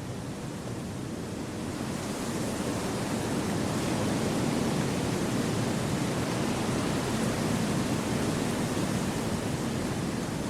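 Wind blowing through forest trees as a steady, even rush, swelling over the first few seconds and then holding.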